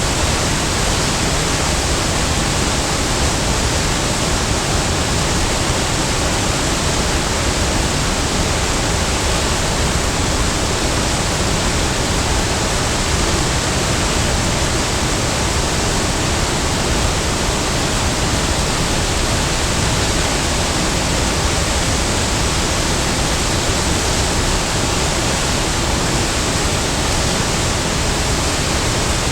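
Large waterfall: a steady, loud rush of falling water, even and unbroken.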